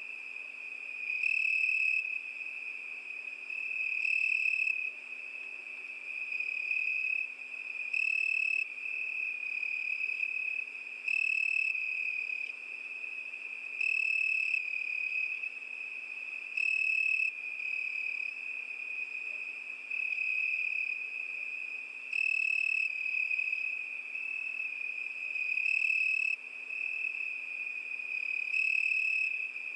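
Crickets singing: a steady high-pitched trill that swells louder for about a second roughly every three seconds.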